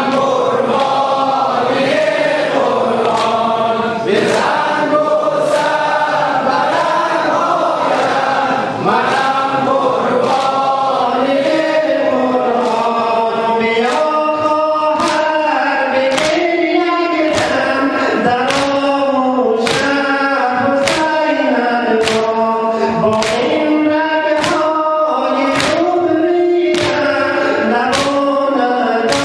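Men chanting a Shia mourning lament (noha) together, with the rhythmic slaps of chest-beating (sineh zani) keeping time. The slaps are faint at first and grow louder and quicker about halfway, to about one a second.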